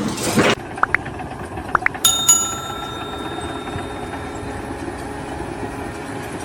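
A sharp metallic clang about two seconds in that rings on and fades over a couple of seconds, over steady background noise.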